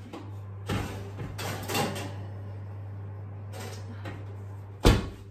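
A metal muffin tray clattering and scraping as it is slid onto the oven's middle shelf, then the oven door shutting with a sharp bang near the end.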